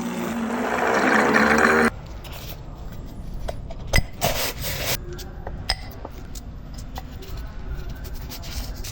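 Music cuts off sharply about two seconds in. Then come light metallic clinks, scrapes and clicks from tools and parts being handled, with a sharp knock and a short rushing noise just after four seconds.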